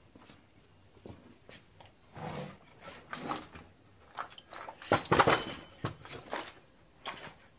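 Wooden crate of loose copper pipe fittings dragged out from a shelf under a workbench, the fittings clattering and shifting against each other in several short bursts. The loudest rattle comes about five seconds in.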